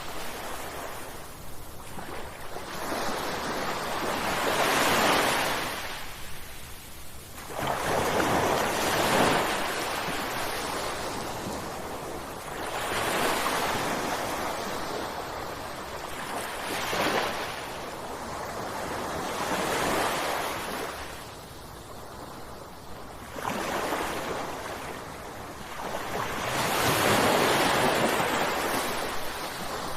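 Ocean waves breaking on a shore, the surf swelling and falling away in repeated surges every few seconds.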